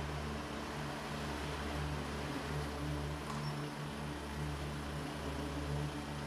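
Car engine running low and steady as a Volkswagen Golf pulls up and stops.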